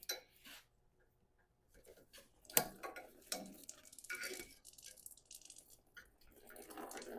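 Scattered clicks and knocks of hands working at a radiator fitting on a Ford 6.7 Powerstroke's cooling system, with coolant dripping. Near the end, coolant starts to run out faster.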